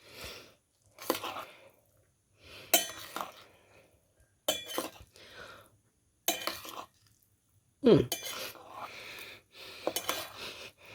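Cutlery clinking and scraping against a plate as instant fried noodles are stirred and tossed through a thick seasoning paste, in about six separate strokes spaced every second and a half or so.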